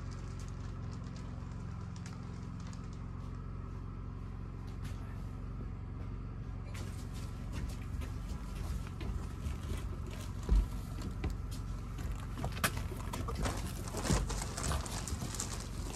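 Knocks, thumps and straw rustling as a straw-and-mycelium-filled pallet wall panel is handled and set in place. They begin about halfway, with one sharp thump shortly after and a run of knocks near the end, over a steady low hum.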